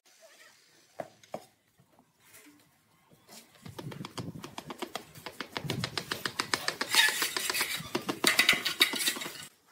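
Small hammer tapping a ceramic tile strip to bed it into the mortar along the top of a wall tile row: a fast run of light, sharp taps, several a second, starting a few seconds in and getting louder toward the end.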